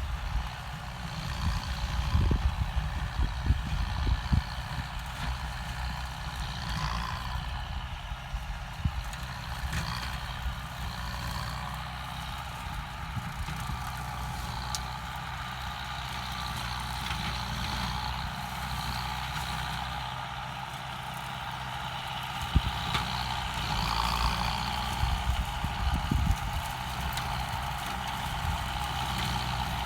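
Kubota M9540 tractor's four-cylinder diesel engine running steadily under load while a rotary tiller shreds old pineapple plants, with low thumps at times.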